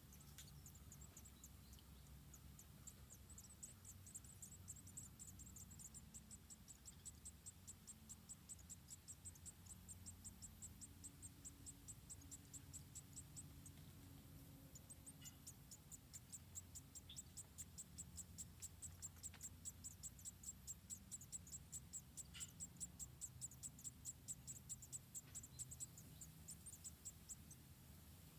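Faint, fast, high-pitched chirping from an insect, repeated in an even rhythm. It runs in two long bouts, stopping for a few seconds near the middle.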